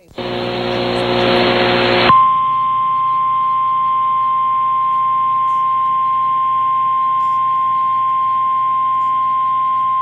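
Emergency Alert System warning alarm tone: a single steady pitch just above 1 kHz, held unbroken for about nine seconds, fitting the NOAA Weather Radio 1050 Hz warning alarm. For the first two seconds, before the tone starts, there is a loud burst of hissy noise with a low hum.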